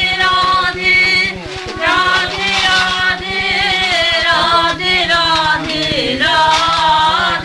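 Kirtan: voices singing a devotional chant in phrases of a few seconds each, over a steady low drone.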